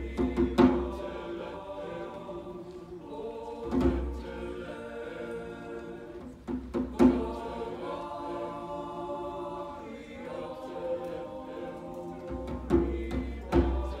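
Large mixed choir singing in held, sustained chords, with scattered deep drum strikes: a few near the start, one about four seconds in, a pair around seven seconds, and two near the end.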